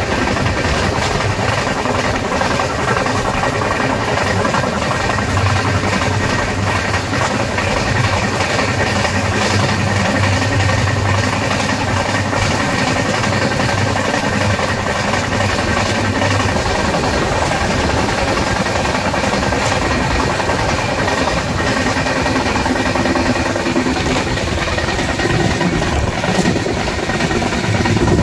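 Express passenger train running at speed: a steady rumble of the wheels on the track mixed with rushing air, heard with the microphone held out at the side of the coach.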